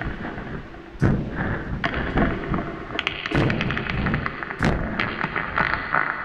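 Experimental noise music: a dense, crackling wall of distorted noise broken by sharp thuds and bursts, with heavy hits about a second in and again near three and a half and four and a half seconds in. A brighter hiss comes in about halfway through and stays.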